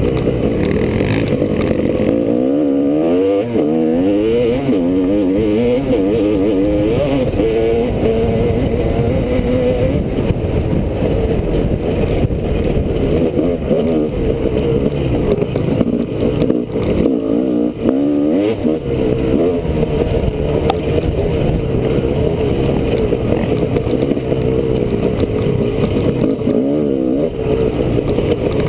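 Honda CR250R two-stroke dirt bike engine revving up and down continuously as the rider works the throttle on a trail, picked up by a helmet-mounted camera.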